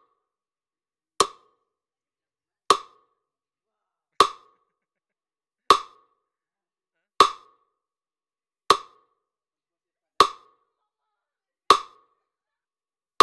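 Metronome clicking at a slow steady beat, one sharp wood-block-like click about every one and a half seconds (about 40 beats a minute). It sets the pace for the dips, one dip per click.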